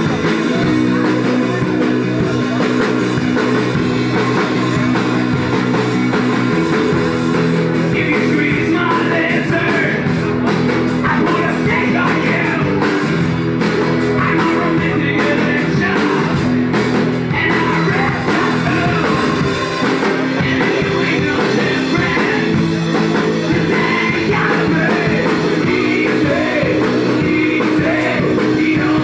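Live rock band playing loud, with drums driving it, and a singer coming in over the band about eight seconds in.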